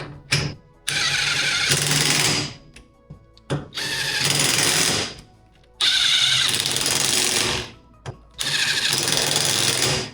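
Power tool running fasteners in four bursts of one and a half to two seconds each, with short pauses between them.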